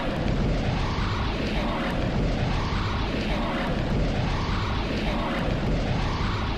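A looped magic-power sound effect: a steady rushing noise with a low rumble, a whooshing swell coming round again about every second and three-quarters.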